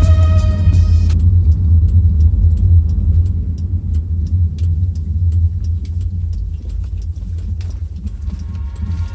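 Car driving: a steady low rumble of engine and road noise. Music cuts out about a second in.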